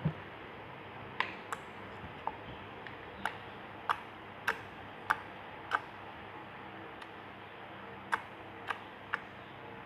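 About a dozen sharp, irregularly spaced clicks over a steady low hiss, bunched about every half second in the middle and again near the end.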